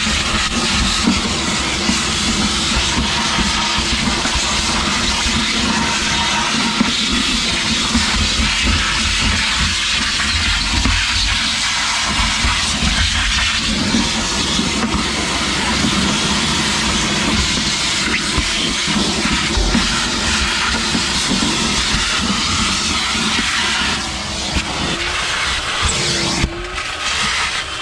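Vacuum cleaner running steadily, sucking dirt and oily grime out of a car trunk's carpet. It gets somewhat quieter near the end.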